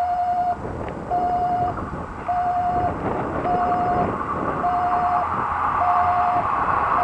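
Railway level-crossing warning alarm sounding a steady tone, on and off about once every 1.2 seconds. An approaching KiHa 110 series diesel railcar's running noise builds toward the end.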